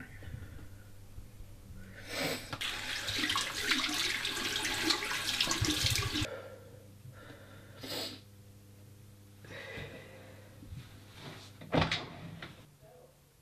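Water running from a tap into a bathroom sink for about four seconds, cutting off suddenly. Later there is a short burst of noise and then a sharp knock near the end, over a faint steady low hum.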